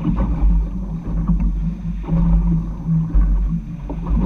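Motorboat engine running with a steady hum, under heavy, gusting wind rumble on the microphone.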